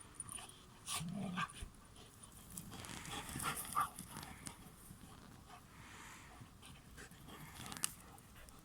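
Dog panting, with a short low sound about a second in and a few scattered clicks.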